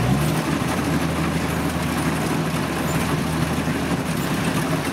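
Kubota DC-70 combine harvester's diesel engine running steadily.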